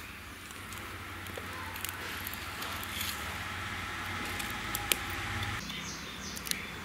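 Wood fire burning under a cooking stove: a few sharp scattered crackles and pops over a low steady rumble.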